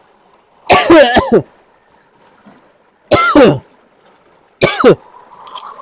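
A man's three short cries, each sliding down in pitch, over a faint trickle of river water.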